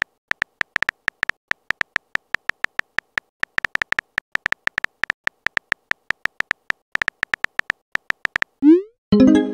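Synthetic keyboard-tap clicks from a texting-story app, a fast uneven run of short, high ticking taps, about five or six a second, as a message is typed. Near the end a short rising whoosh and a chime sound as the message sends.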